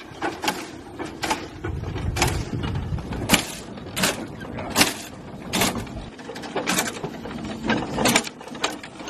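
Replica of Richard Trevithick's early steam locomotive running on rails, puffing in sharp beats roughly once a second, with a low rumble of the engine beneath.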